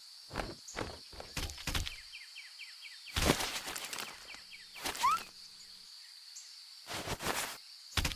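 Cartoon sound effects of a small creature burrowing and popping out of the ground: a run of short rustling thumps and pops, a few small chirps, and a quick rising whistle about five seconds in, over a steady high insect drone of forest ambience.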